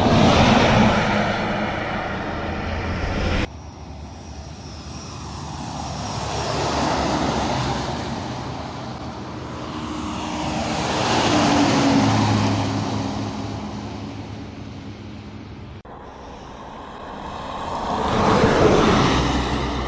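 Large buses passing at speed on a highway, one after another: each one's engine and tyre noise swells up as it approaches and fades as it goes by, four times. The sound jumps abruptly twice where clips are joined.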